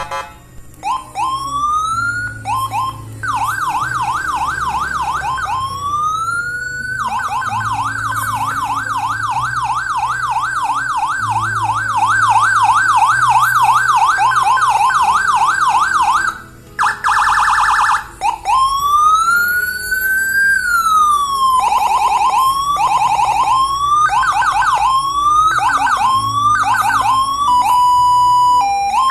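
Electronic police siren module for a PJR-style patrol siren, played through its speaker and cycling through its tones. It gives rising sweeps, then a long fast yelp warbling up and down, a short blaring horn buzz, a slow wail rising and falling, quick repeated sweeps, and a steady tone near the end.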